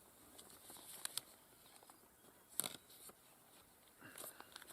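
Near silence with a few faint, short clicks and light rustling; the sharpest click comes about two and a half seconds in.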